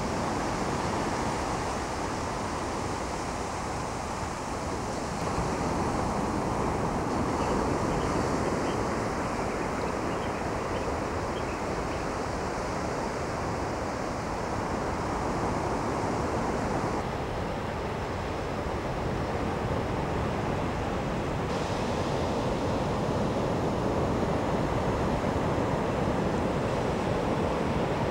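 Sea surf washing onto a sandy beach, a continuous rush of breaking waves.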